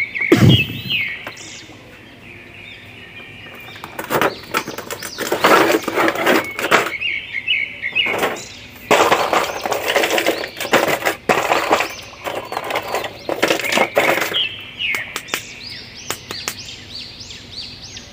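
Clear plastic blister tray and packaging crinkling and crackling as hands handle it, in several bursts a few seconds long.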